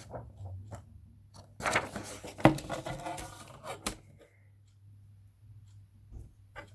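Paper being handled on a table: rustling and light taps, busiest from about a second and a half in to about four seconds, then only a few faint taps.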